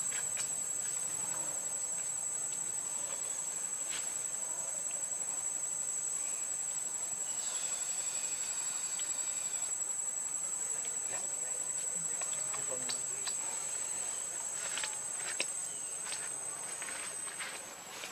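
Insects droning in one steady high-pitched tone that fades out near the end, with scattered light ticks and taps.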